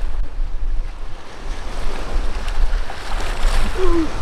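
Strong wind buffeting the microphone: a gusty low rumble with a steady rushing noise over it.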